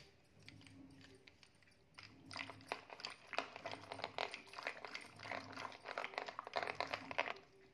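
Cream being churned by hand with a wooden-handled stirrer in a steel saucepan, as butter separates from the buttermilk. It makes rapid, irregular squelching and scraping strokes, with the utensil clicking against the pan; the churning is faint at first and grows busier about two seconds in.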